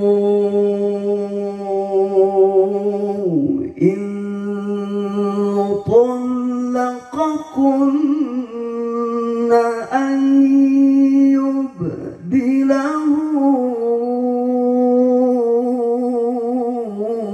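A man's voice reciting the Quran in the melodic tilawah style, holding long ornamented notes, through a microphone and stage sound system. He pauses briefly for breath about four, six and twelve seconds in, and climbs to a higher held note around ten seconds in.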